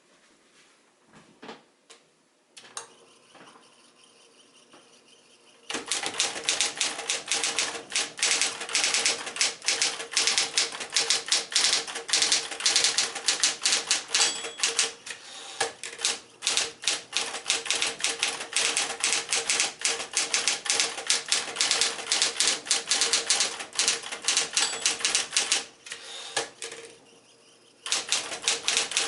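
Smith-Corona Electra 120 electric typewriter typing: a fast, dense stream of sharp keystrikes over a steady motor hum. It starts after a few quiet seconds, and there is a brief lull near the end before the typing goes on.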